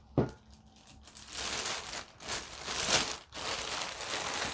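Clear plastic bag crinkling in long rustling stretches as hands pull it off an enamel kettle. A short knock comes just at the start.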